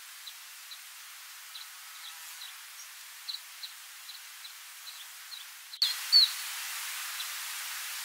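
Small songbird giving short, high call notes, about two a second, over a faint steady hiss. Near the end the hiss jumps louder, and two louder chirps come, the second curving in pitch.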